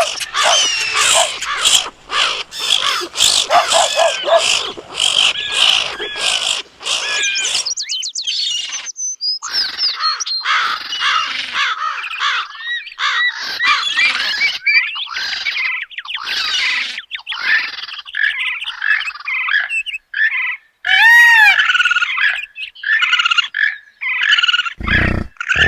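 A run of animal calls, mostly bird chirps and squawks, crowded together and changing every second or so, with some croaking mixed in. One loud call with falling and rising pitch stands out about two-thirds of the way through, and a brief loud low sound comes near the end.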